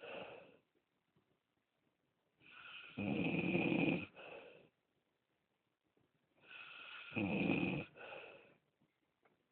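Snoring: two long, low-pitched snores about four seconds apart, each starting quietly and swelling to a loud middle, with near silence between breaths; the tail of a previous snore trails off at the very start.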